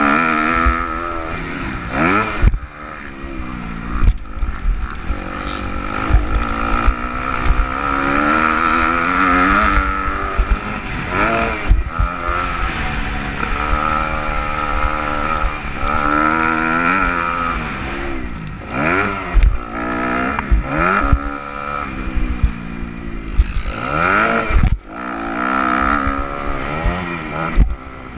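250cc motocross bike engine being raced, its pitch repeatedly climbing under throttle and dropping at shifts and corners, with wind buffeting and thumps on the helmet-mounted microphone.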